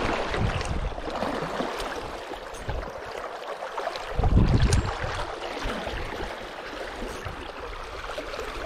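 Shallow river water rushing steadily over a stony bed, with a louder low rumble about four seconds in.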